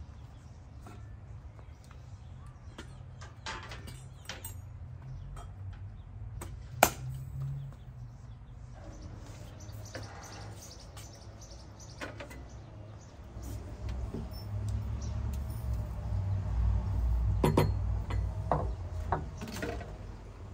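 Scattered knocks and clinks of a metal samovar being lifted, carried and set down on a tray among glass and china, with the sharpest click about seven seconds in and a cluster of knocks near the end. A low rumble runs underneath and grows louder in the second half.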